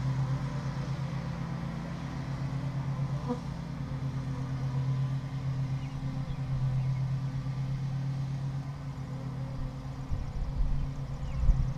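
Honey bee colony humming steadily over an open hive. A few low thumps come near the end.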